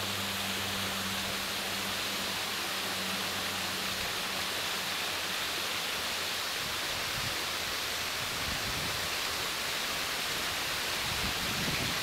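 Waterfall rushing steadily, an even hiss of falling water. A faint low hum fades out about four seconds in, and uneven low rumbles come in during the second half.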